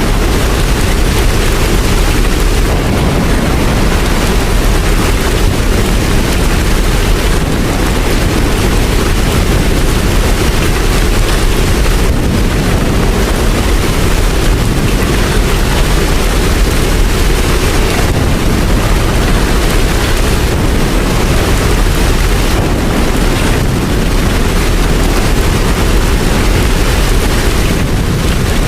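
Steady heavy rain, a dense even hiss with a deep low rumble underneath.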